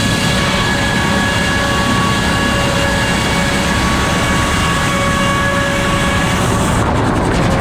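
Circular sawmill head saw with F-pattern inserted teeth running at speed, a steady mechanical noise with whining tones that fade in and out. Near the end the high hiss drops away.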